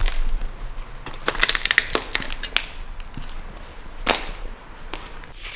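Debris crunching and crackling underfoot: an irregular run of snaps and crackles, densest in the first half, with a sharp crack about four seconds in.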